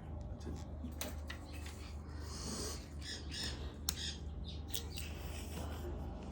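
Mexican red-headed parrots squawking and calling, with a few sharp clicks among the calls and a steady low hum underneath.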